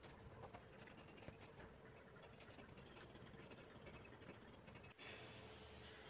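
Near silence: faint room tone with a few soft ticks.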